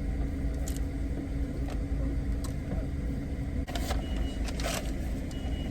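Steady low rumble of a car's engine and road noise heard from inside the cabin while driving. There are a few brief rustles or clicks and two short high beeps in the second half.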